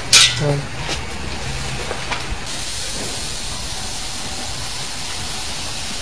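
A sharp clatter near the start, then the contents of a sack poured into the steel barrel of a hydraulic oil press, a steady rushing hiss that starts suddenly about two and a half seconds in, over a low hum.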